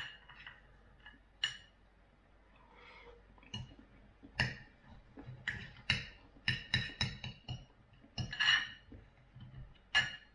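Metal knife and fork clinking and scraping on a plate while cutting food: a run of irregular sharp clinks with a short ring, most of them in the second half.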